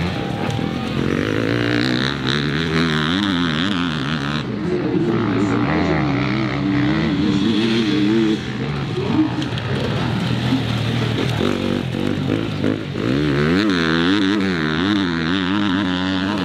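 Enduro dirt bike engines revving hard, pitch rising and falling with throttle and gear changes. The sound shifts abruptly about four and eight seconds in.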